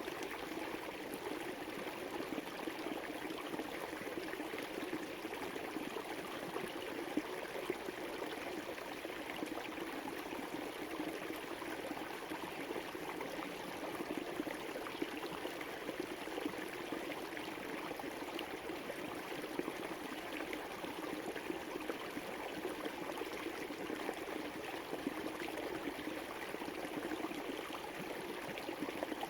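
Small river flowing and burbling steadily over stones, a continuous rushing with fine splashy texture.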